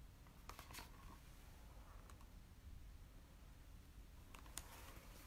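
Near silence, with a few faint clicks from a hardcover picture book being handled and a page turned.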